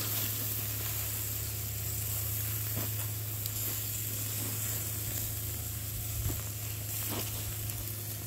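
Chicken thighs sizzling steadily on the grate of a charcoal grill, over a steady low hum.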